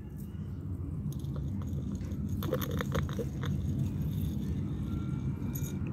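Dry cat food rattling out of a plastic bottle onto the pavement, with a short cluster of clattering kibble about halfway through, over a steady low rumble.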